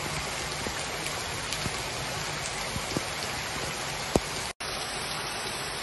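Heavy rain pouring onto a wet street: a steady hiss with scattered drop taps. One sharp tap comes about four seconds in, then the sound cuts out for an instant.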